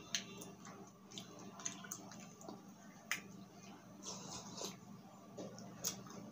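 Faint wet mouth sounds of eating: soft chewing clicks, then sips and swallows as broth is drunk from a glass bowl, a few sharp wet clicks scattered through.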